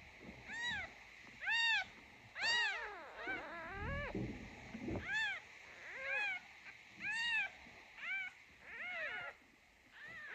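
A newborn kitten mewing over and over, high thin cries that each rise and fall in pitch, about one a second, with a few quicker broken cries bunched in between.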